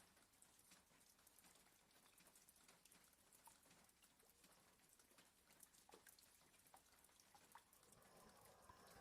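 Near silence with faint light rain: scattered soft taps of raindrops over a low hiss.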